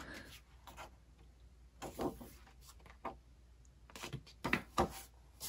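Pages of an album lyrics booklet being turned and handled: a few separate short papery rustles and taps, two of them close together near the end.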